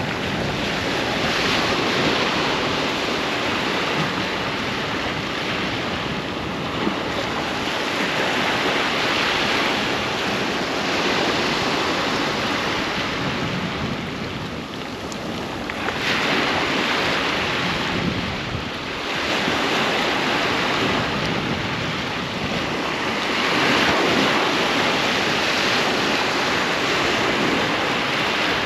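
Ocean surf breaking on a sandy beach: a continuous wash of waves that swells and ebbs every few seconds, with one wave coming in sharply about halfway through.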